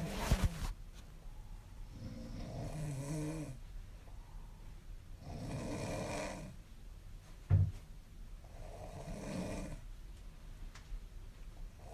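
A young woman snoring in her sleep, with about four slow breaths roughly three seconds apart, one carrying a low buzzing rattle. A short, sharp low sound stands out about seven and a half seconds in.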